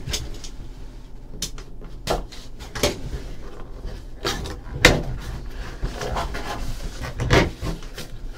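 A trading-card hobby box being handled and opened by hand: an irregular string of knocks, taps and rustles of cardboard and wrapping, the sharpest about five seconds in and again about seven seconds in.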